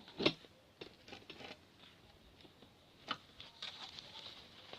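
Paper and pen handling on a desk: a sharp knock about a quarter second in, then scattered small taps, and light scratching near the end.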